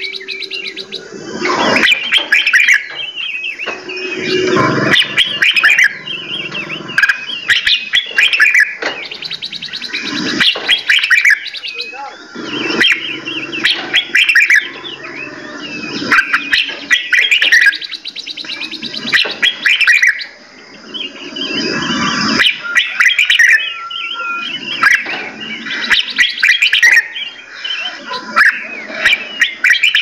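A chorus of several caged songbirds singing and calling over one another: dense chirps and whistled phrases, scattered with sharp clicks.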